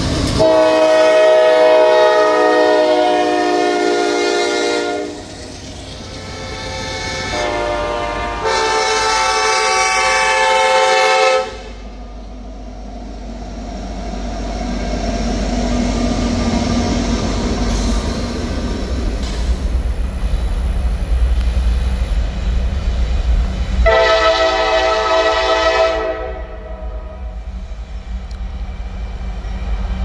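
Norfolk Southern diesel freight locomotive's multi-chime air horn sounding a long blast, a shorter one and another long blast. The train then rumbles past with its diesel engines and rolling cars, and the horn sounds once more for about two seconds near the end.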